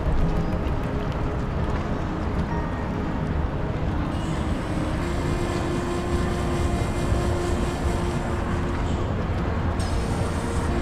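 Steady background hum and rumble of a large exhibition hall, with a few faint held tones over it.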